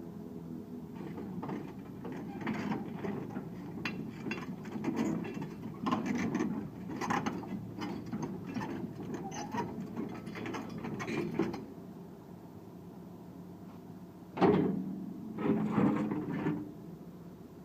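Excavator diesel engine running steadily, with repeated metallic clanks and knocks through the first two-thirds. Near the end come two louder bursts of knocking, the first of them sudden.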